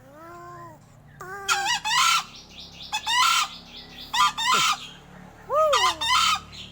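Crow giving unusual calls: a clear, arched, pitched call, then a run of loud harsh rasping calls, with another clear arched call near the end.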